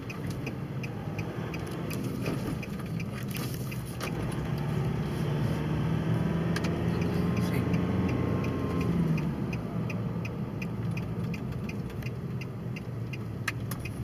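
Car engine and road noise from inside the cabin, the drone growing louder in the middle of the stretch, with a steady, even ticking over it that fits the turn-signal indicator during a U-turn.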